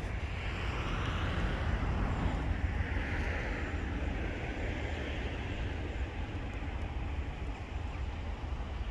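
Steady outdoor background noise: a low, buffeting rumble of wind on the microphone under a distant vehicle hiss that swells over the first few seconds and then eases.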